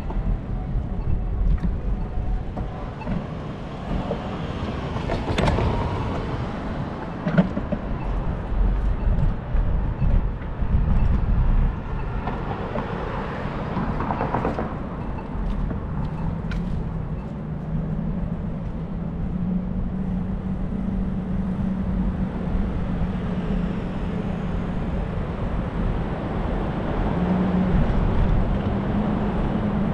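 Wind buffeting the microphone and tyre noise while riding a bicycle along a city sidewalk, with cars passing in two swells. A steady hum joins about halfway through.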